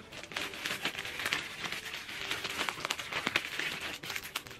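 Plastic packaging crinkling and crackling as it is handled, a dense run of small crackles.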